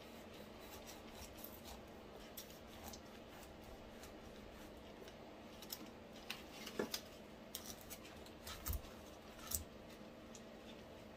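Kitchen knife cutting into a whole pineapple: faint crunching, scraping strokes through the tough rind, growing sharper and more frequent from about halfway in, over a faint steady hum.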